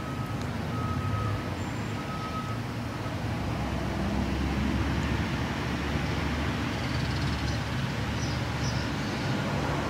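Steady low rumbling background noise, the ambient noise being checked for a recording, with a faint high tone that sounds in short repeats during the first couple of seconds.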